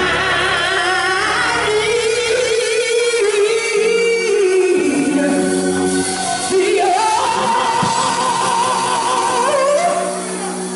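A woman singing a gospel solo with long, wavering held notes, climbing to a higher held note about seven seconds in, over sustained keyboard chords.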